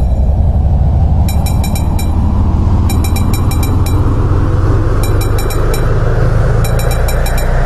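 Electronic dance music build-up: a sustained heavy bass under a rising noise sweep, with short bursts of rapid high ticking percussion recurring about every second and a half, leading into the drop at the very end.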